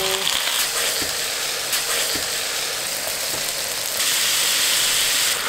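Soy-marinated sliced pork sizzling as it fries in hot oil with green onion in a pan: a steady hiss that gets a little louder about four seconds in.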